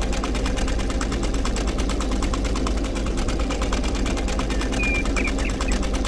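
Small electric motor of a miniature model machine running steadily, with a fast, even rattle over a low hum.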